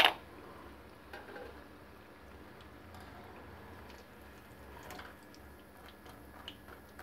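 Bread potato vadas deep-frying in hot oil: a faint, steady sizzle with scattered small pops. A sharp click at the very start.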